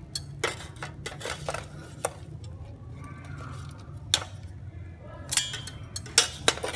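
Metal ladle clinking and scraping against stainless steel pots as boiled shrimp are scooped out of the broth, in irregular knocks that come thicker and louder near the end, over a low steady hum.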